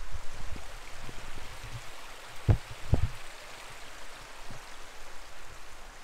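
Running water: a steady, even rushing. Two dull thumps come about half a second apart near the middle.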